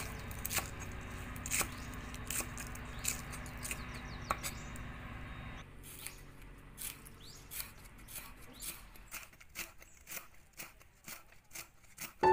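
Steel cleaver chopping green onions on a wooden cutting board: sharp knocks of the blade on the board, spaced out at first and quicker, about two or three a second, in the second half.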